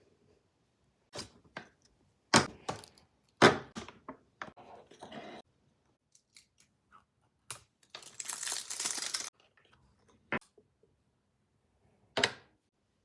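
Packaging being handled and torn open: scattered crinkles and rustles, then a steady tearing that lasts about a second and a half past the middle, and a couple of sharp crackles near the end.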